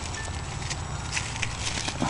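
Pea vines being pulled up by hand: rustling foliage with a few short, sharp crackles.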